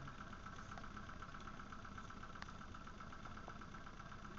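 Small 9.9-horsepower outboard motor running steadily at low, trolling speed, with a few faint ticks over it.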